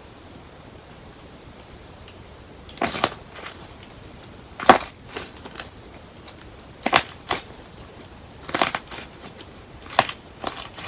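Hard candle-wax shell on a slime cracking as it is pressed by hand: sharp crackling snaps in irregular clusters, starting about three seconds in, the loudest near the middle.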